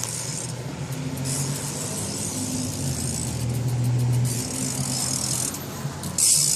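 A car engine running nearby, a low hum that rises a little in pitch around the middle, with stretches of hiss coming and going.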